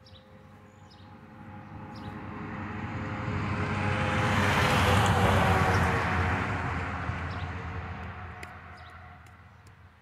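A work truck carrying a green dumpster box drives past on the road, its engine and tyre noise swelling to a peak about halfway through and then fading away.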